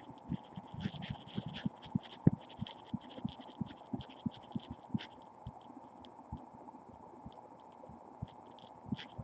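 Soft, irregular thumps of a finger tapping on bone, carried through the body to a webcam microphone held against the skin. The taps come quickly for about five seconds and then thin out, over a faint steady hum.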